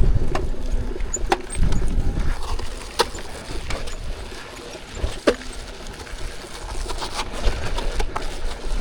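Electric unicycle riding over a rocky trail: wind rumbling on the microphone, strongest in the first couple of seconds, with scattered sharp clicks and knocks of stones under the tyre.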